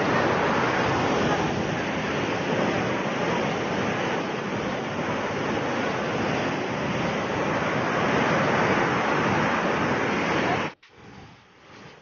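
Steady rushing of a large waterfall's torrent. It cuts off suddenly near the end, leaving only faint sound.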